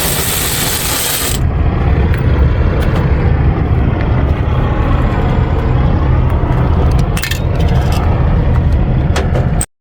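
Steady low rumble of an idling diesel engine, with a hiss at the start and a few sharp metallic clinks and scrapes of metal parts being handled. It cuts off abruptly just before the end.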